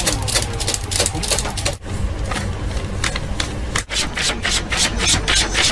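Newspaper pages rustling and flapping as a cat bats at them quickly with its paw: a rapid run of crisp paper swishes, several a second, coming faster and more evenly after about four seconds.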